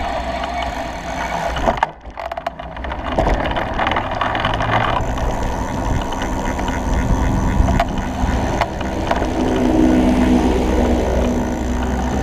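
Riding noise of a Stromer ST2 electric bike on pavement, heard from a camera mounted on the bike: a steady rumble of wind and tyres on the road, with a few sharp knocks from the bike going over bumps. A steady low hum joins in about ten seconds in.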